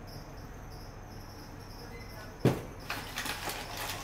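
A cardboard box of cornstarch set down on a kitchen counter with a single sharp knock about two and a half seconds in. Light clicks and rustling follow as hands work over a steel mixing bowl on a kitchen scale.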